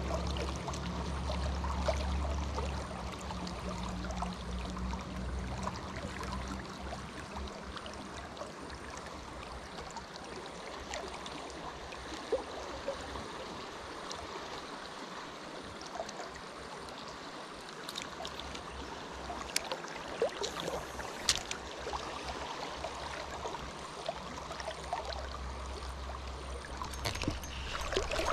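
River water running steadily, with a few scattered small clicks and taps.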